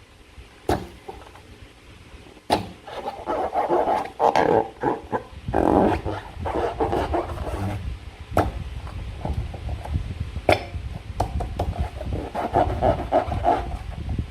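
Slime being worked by hand, with wet squelching and crackling in bursts and a few sharp clicks or taps in between.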